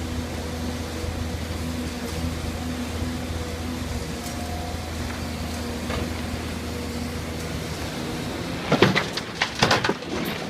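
LiuGong excavator's diesel engine running steadily, with a quick series of loud clanks and knocks about nine seconds in.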